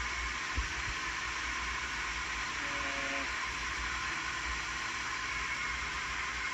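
2008 Toyota Yaris engine idling just after a remote start: a steady hiss with a low rumble underneath. A single click about half a second in.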